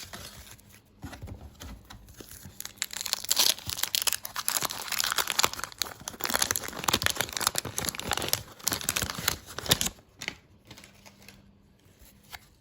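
Wax-paper wrapper of a 1989 Fleer baseball card pack being torn open and crumpled: dense crinkling and crackling from about a second in, stopping about ten seconds in.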